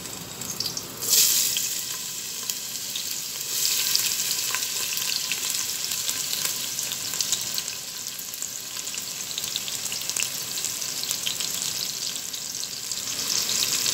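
Chopped onions hitting hot oil in a stainless steel pot: a sudden loud burst of sizzling about a second in, a second surge a couple of seconds later, then a steady sizzle with fine crackling as the onions fry.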